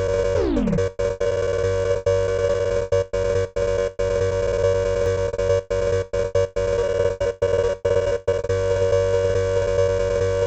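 Harsh, distorted synthesized emergency-alert alarm tone for a mock East German alert system, held on one steady chord and chopped by many brief cuts to silence. Just under a second in, a tone sweeps quickly down in pitch.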